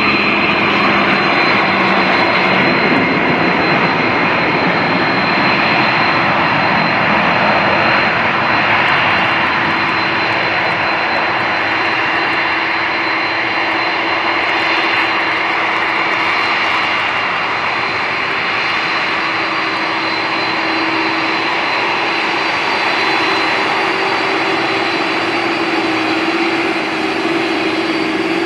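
Jet airliner engines running loud and steady: a continuous rush of jet noise with a thin, steady high-pitched whine over it and a lower hum that grows a little stronger near the end.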